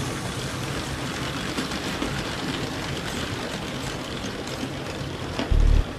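Motorised Lego train rolling steadily along plastic Lego track, a steady rattling rumble of small plastic wheels and motor. Near the end a loud low sound cuts in abruptly.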